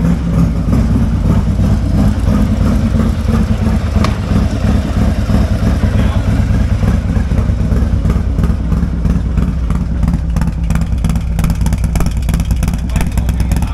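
Harley-Davidson Road Glide's Milwaukee-Eight V-twin running at a steady speed through an aftermarket exhaust.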